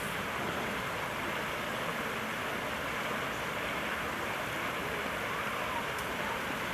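Steady outdoor background noise: an even hiss with no distinct calls, knocks or other events.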